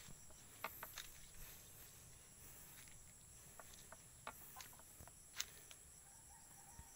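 Faint footsteps on dry leaves and soil, a scattering of soft irregular ticks, over a steady high-pitched insect drone.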